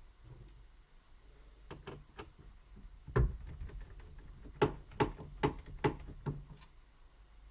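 Hand work on a laptop during disassembly: light clicks, then one sharper knock about three seconds in, then a quick run of knocks and taps about two a second.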